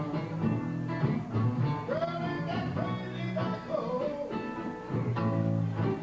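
Live blues-rock music played on two electric guitars.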